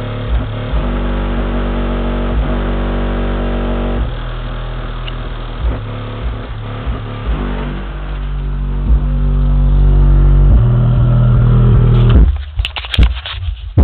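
12-inch Pioneer TS-W306 subwoofer in a ported box tuned to about 38 Hz, playing deep bass notes and thumping beats of a hip-hop track inside a car, with the rest of the music faded to the rear. The bass builds louder about two-thirds of the way through, then briefly breaks up with a few sharp clicks near the end.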